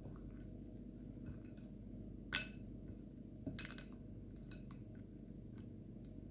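A hand stirring grated potato in iced water in a ceramic plate: soft squishing and a few sharp clinks of ice cubes against the plate, the loudest about two and a half seconds in, over a low steady hum.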